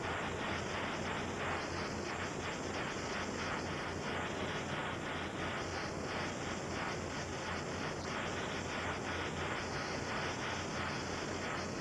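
Steady helicopter noise heard from inside the cabin: a dense, even rushing of rotor and turbine with a fast pulse running through it, under a layer of videotape hiss.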